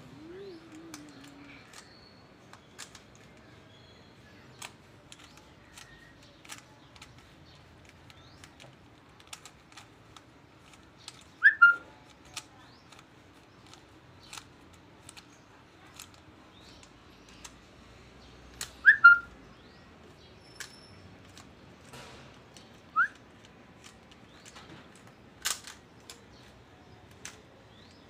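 Plastic cylinder twisty puzzle being turned by hand, with scattered faint clicks of its layers and one louder click near the end. Short high falling chirps cut through three times, twice as quick pairs and once singly, and these are the loudest sounds.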